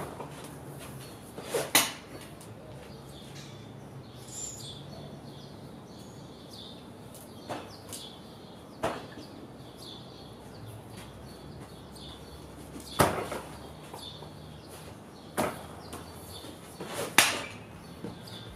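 Lacrosse shots from a newly strung stick: a handful of sharp knocks as balls are fired and strike the goal, spaced a few seconds apart. The loudest come near the start, about two-thirds of the way through and near the end.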